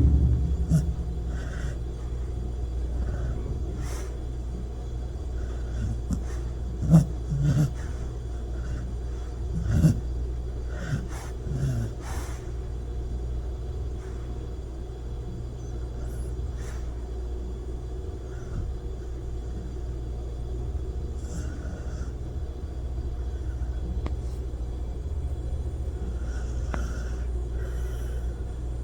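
A bone-mouth Shar-Pei dog snoring in its sleep, breathing noisily through its nose over a steady low rumble. A few louder breaths come in the first half.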